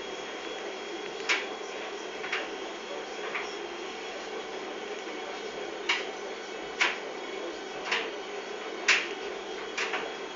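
A series of about eight sharp clicks, mostly about a second apart with a pause midway, over a steady hum.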